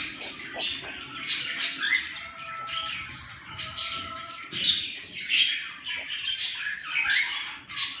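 A brood of young cockatiel chicks giving harsh, raspy squawking calls over and over, several a second, with a few short whistled notes mixed in and the loudest calls around the middle.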